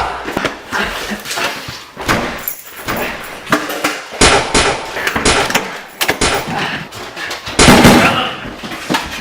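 Nerf blaster shooting: a long run of sharp shots and impacts, loudest about eight seconds in.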